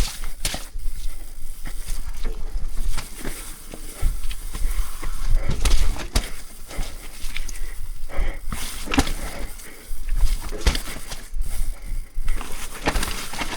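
Mountain bike descending a wet, rocky technical trail: repeated knocks and clatter of the wheels, chain and frame hitting rocks and roots, over a steady low wind rumble on the microphone.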